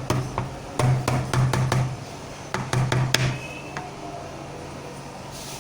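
A run of sharp knocks and taps in two quick clusters, the first beginning right away and the second about two and a half seconds in, stopping after about three and a half seconds.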